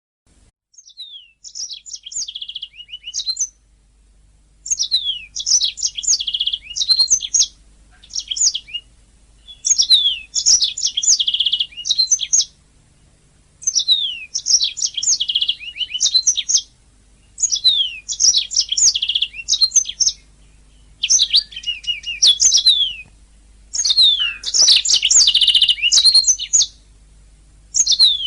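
Domestic canary singing: phrases of rapid falling chirps and rolling trills, each two to three seconds long, repeated with short pauses.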